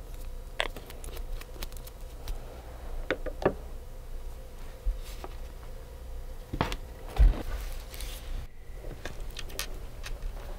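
Light clicks, taps and scrapes of small nail-art tools being handled during a manicure, with a louder knock about seven seconds in.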